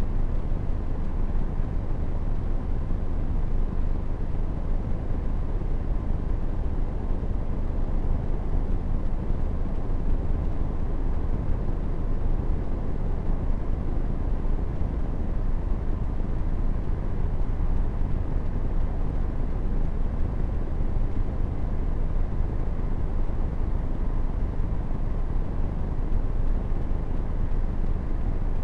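Steady low rumbling noise without any distinct tone or event, the sound of wind buffeting the microphone.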